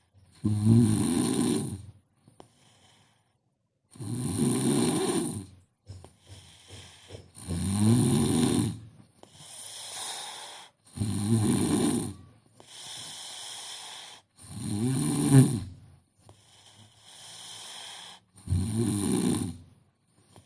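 A sleeping person snoring heavily: six loud, rattling snores, one about every three and a half seconds, with quieter breaths out between them.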